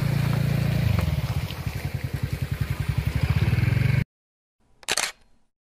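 Vehicle engine idling with a fast, even low throb, cut off abruptly about four seconds in; a brief burst of noise follows about a second later.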